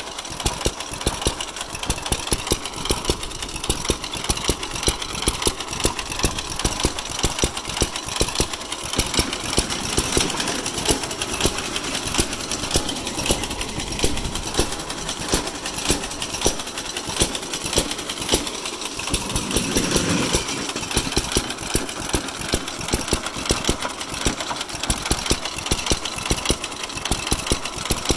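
Hit-and-miss engine of an Ideal power lawn mower running at idle: sharp firing pops at uneven intervals over a continuous mechanical clatter, the governor letting it fire only now and then.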